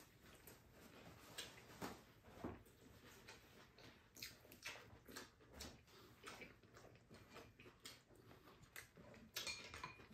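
Faint, irregular clicks and taps of a spoon and chopsticks against ceramic bowls during a meal, with quiet eating sounds, a little busier near the end.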